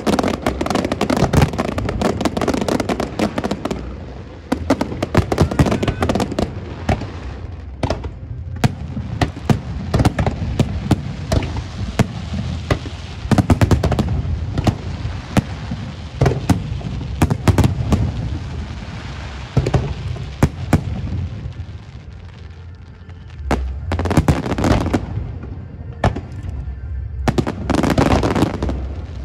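Fireworks display: aerial shells bursting in rapid succession, a dense run of bangs and crackling that eases for a moment about two-thirds of the way through, then builds into thick volleys near the end.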